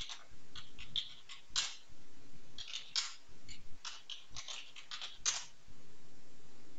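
Computer keyboard keys clicking in short, irregular bursts as someone types.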